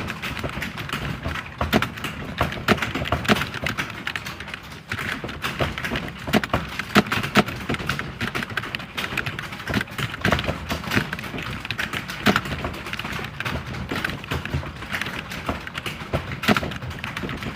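Computer keyboard being typed on continuously, fast and irregular key clicks at several strokes a second, with louder occasional strokes.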